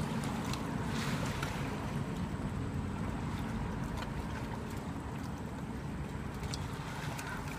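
Wind rumbling on the microphone over lapping lake water, with a few faint splashes as a person moves in the water.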